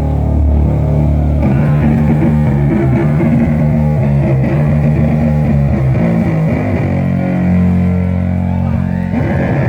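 Heavily distorted electric guitar playing slow, held low chords, heavy-metal style, during a band's sound check.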